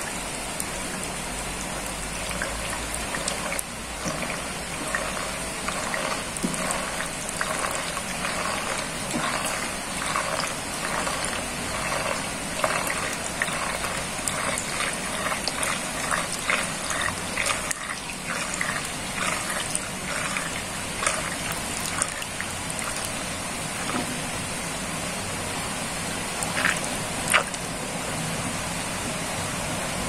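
Water spinning down a sink drain in a whirlpool, gurgling in quick repeated bursts through the middle, over a steady hiss of rain. One sharp click near the end.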